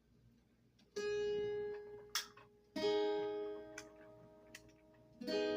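A guitar strummed through an amp during a sound check: three chords, each let ring and fade, with a short click of hand or pick noise between the first two.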